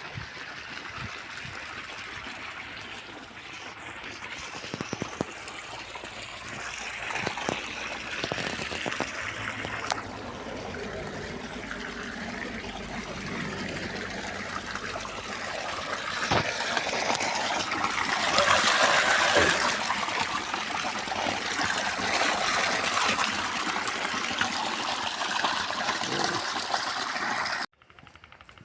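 Running stream water, trickling and gushing, growing louder about two-thirds of the way through, then cutting off suddenly near the end.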